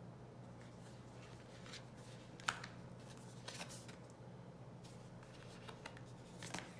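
Oracle cards being drawn and laid down on a cloth-covered table: a few short snaps and soft rustles, the sharpest about two and a half seconds in, others a second later and near the end, over a faint steady hum.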